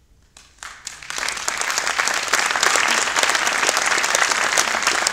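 Audience applause breaking out after a brief hush: a few first claps about half a second in, swelling within a couple of seconds into full, steady clapping.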